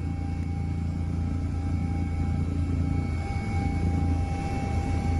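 Steady aircraft engine drone, a low even rumble with a constant thin whine above it, typical of a helicopter running.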